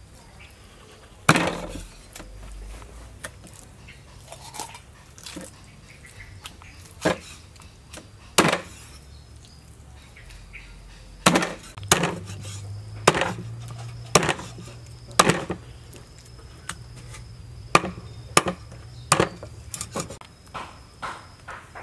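Steel meat cleaver chopping raw chicken through bone on a wooden chopping board: single sharp chops a second or more apart, coming quicker in the last few seconds.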